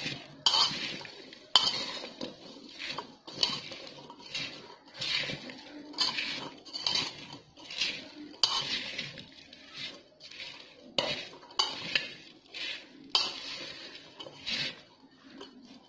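Steel spoon stirring and tossing salted raw jackfruit strips in a metal pot: repeated scrapes and clinks against the pot, a stroke every second or so.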